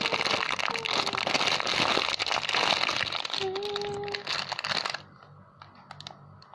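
Plastic packaging crinkling and rustling as a squishy toy in its plastic bag is handled and squeezed, stopping suddenly about five seconds in.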